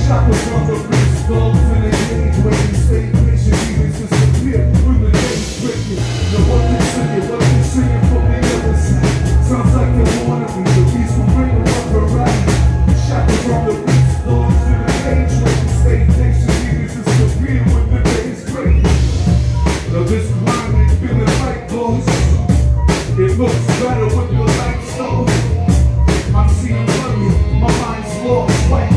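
Live jazz and hip-hop band playing an instrumental passage: a steady drum-kit beat over heavy bass.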